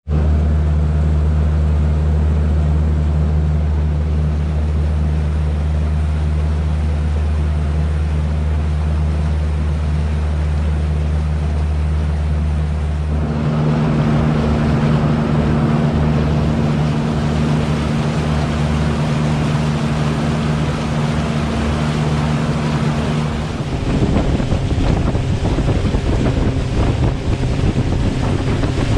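Yamaha outboard motor running steadily as the boat cruises, with water and wind noise on the microphone. The engine note changes about 13 seconds in and again about 24 seconds in.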